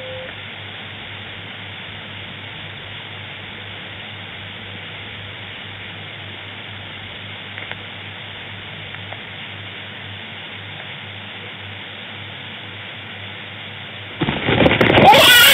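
Steady hiss with a faint low hum, then about a second before the end a sudden loud animal call with a wavering pitch.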